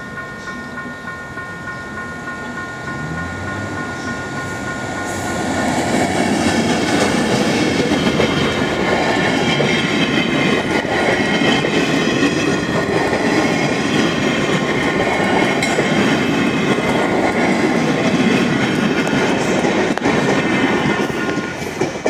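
EMD GT22 two-stroke diesel-electric locomotive passing close by, its engine sound rising about four to five seconds in. A long train of passenger coaches then rumbles past, wheels clattering over the rail joints, with the noise falling off near the end as the last coach goes by.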